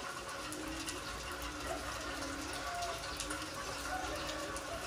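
Heavy rain falling on a concrete yard, a steady hiss with scattered sharp drips and splashes.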